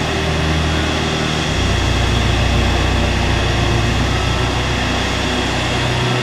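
Jet airliner's engines running steadily as it taxis, a continuous rush of engine noise over a low rumble.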